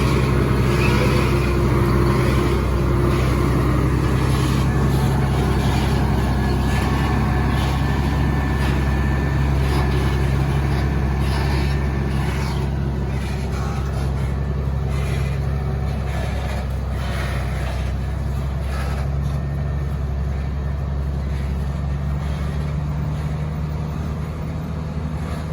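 Heavy diesel truck engine running under load with a steady low drone as the truck tries to climb a steep grade. The drone eases slightly in level about halfway through.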